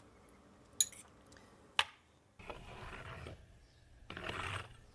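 Wood fire in a clay brick pizza oven giving two sharp pops, then a long-handled oven brush scraping across the oven's brick deck in two strokes, sweeping the coals aside.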